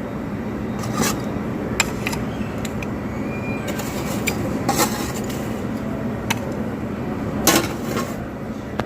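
Restaurant background noise: a steady hubbub with sharp clinks and clatter of dishes and serving utensils every second or two, the loudest near the end.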